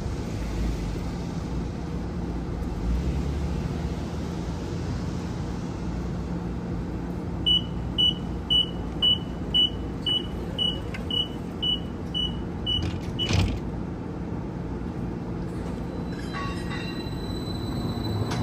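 Seattle Streetcar (Inekon Trio tram) standing at a stop with a steady electrical hum, then sounding its door-closing warning: about a dozen short high beeps, two a second, ending in a thud as the doors shut. Near the end a high whine starts as the streetcar begins to move off.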